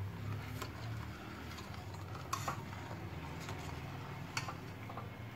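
Steel spoon stirring hot milk in a pan, with a few light clicks and scrapes of metal against the pan, over a low steady hum.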